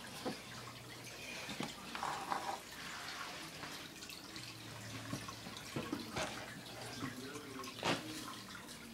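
Water trickling and splashing in a home aquarium, over a faint low hum, with a few sharp knocks scattered through.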